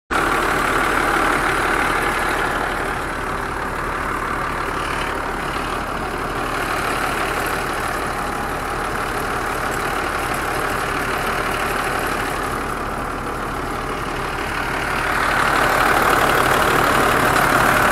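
Combine harvester running: its engine and threshing machinery make a steady noise, louder for the last few seconds.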